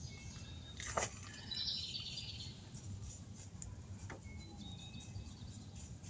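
Faint outdoor background with birds chirping, and a sharp click about a second in and another about four seconds in.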